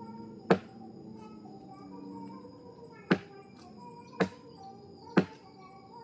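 Four sharp knocks, each ringing briefly: one about half a second in, then three more in the second half, roughly a second apart.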